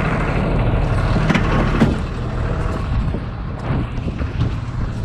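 Tow truck's engine running steadily with a low hum, a couple of short knocks about a second and a half in.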